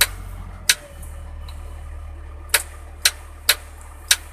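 Dashboard rocker switch on a Volvo wheel loader clicking about six times as the light switch is pressed on and off, over the steady low hum of the machine running.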